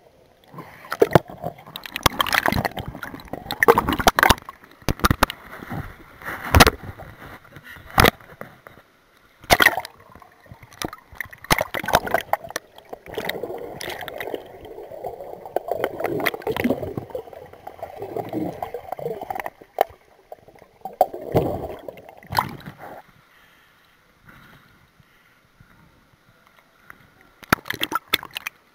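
Underwater sound in a swimming pool during an underwater hockey game: gurgling water and bubbles with many sharp clicks and knocks. It falls much quieter for the last few seconds.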